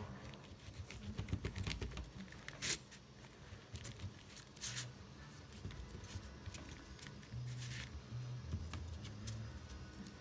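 A glue stick rubbed over paper, with light paper rustling and small handling taps on a tabletop; three short scraping strokes stand out, about three, five and eight seconds in.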